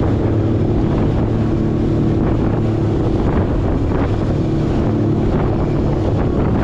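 Jet ski engine running steadily at speed over choppy water, with wind buffeting the microphone.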